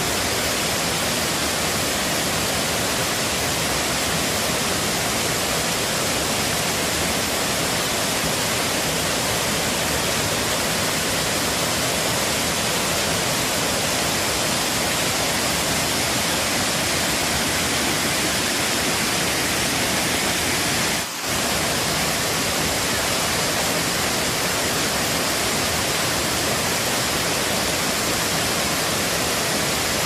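Water rushing and splashing over shallow rock cascades of a forest waterfall: a loud, steady roar of white water, with a brief dip about two-thirds of the way through.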